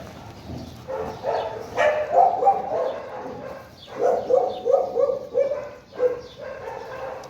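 Dogs barking in three bouts of quick, short, high barks.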